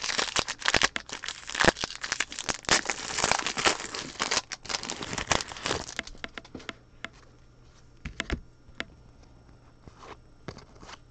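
Foil trading-card pack wrapper being torn open and crinkled for about six seconds, then fainter scattered clicks as the cards are handled.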